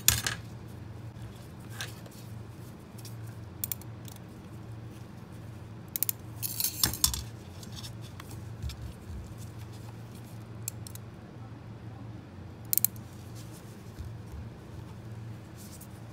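Stainless steel Mathieu needle holders and other orthodontic instruments clicking and clinking as they are handled and set into a metal instrument tray: scattered light metallic clicks, with a cluster about six to seven seconds in, over a steady low hum.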